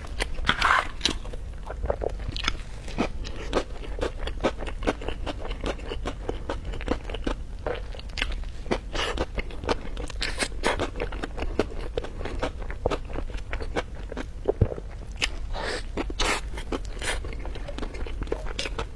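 Close-miked eating: a person biting and chewing food, with many short, irregular crunches and mouth clicks.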